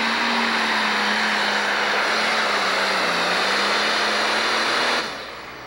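The single-turbo diesel of an International 1066 pro stock pulling tractor runs flat out under load, dragging the sled. Its pitch sags a little about three seconds in, and the sound drops away abruptly about five seconds in.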